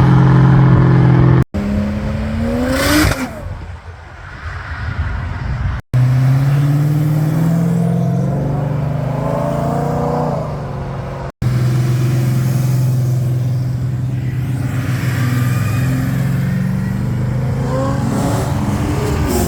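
Muscle-car V8 engines running and revving in a few short segments split by abrupt cuts. The engine pitch rises several times as the cars accelerate, most sharply about three seconds in.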